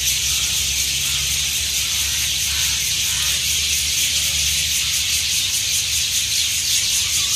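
Many birds calling and chattering at once in the tree canopy, a dense, unbroken high-pitched din of a gathering at dusk. A low rumble runs underneath.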